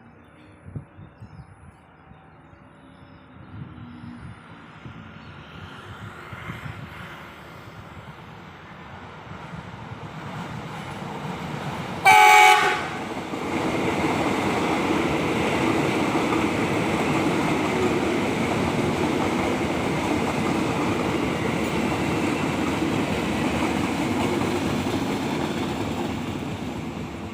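KRL electric commuter train approaching with a growing rumble and sounding its horn in one very loud, short blast about twelve seconds in. It then passes close by with loud, steady wheel-on-rail running noise that fades near the end.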